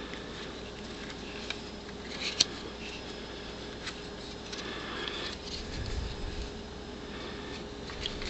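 Quiet room tone with a steady low hum, broken by a few soft clicks and rustles; the sharpest tick comes about two and a half seconds in.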